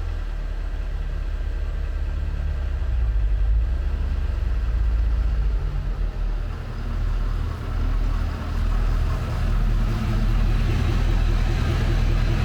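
A vehicle engine running at low speed as it is driven, a steady low hum whose pitch shifts a little, with more hiss and rumble in the second half.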